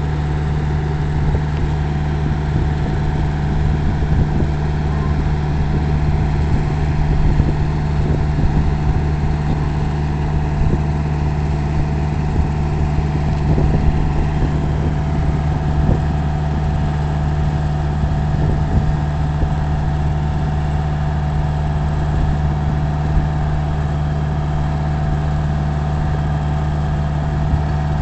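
A vehicle engine running steadily with an even, low drone and no change in pace.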